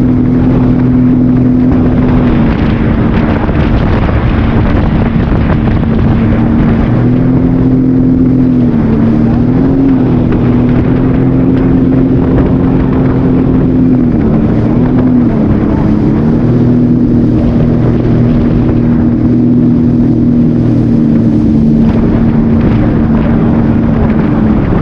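Jet ski engine running steadily over a constant rush of wind and water, its pitch dipping briefly twice, about nine and fifteen seconds in.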